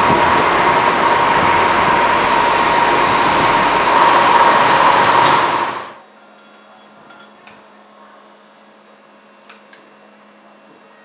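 CNC machine running as it machines a steel drive shaft: a loud, steady noise with a constant whine. It cuts off sharply about six seconds in, leaving a faint hum and a couple of light clicks.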